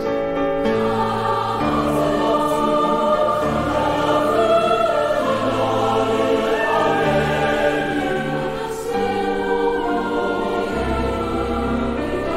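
Mixed-voice student choir singing sustained chords with piano accompaniment, in a live concert performance.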